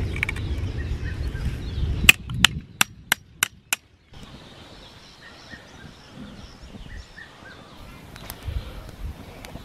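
A hammer striking the back of a knife blade to split kindling: six sharp metallic strikes about a third of a second apart, from about two seconds in. Before them a low rumble; after them a much quieter background.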